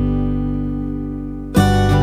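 Background music on guitar: a held chord rings and slowly fades, then a new strummed chord comes in sharply about one and a half seconds in.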